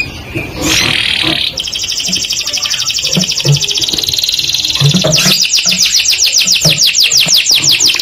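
Domestic canaries singing: a short rough call, then a fast trill of high, rapidly repeated notes, changing about five seconds in to a slower trill of repeated sweeping notes at about seven a second.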